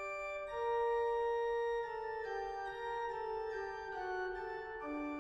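Organ music: slow, sustained chords of held notes, changing every second or two.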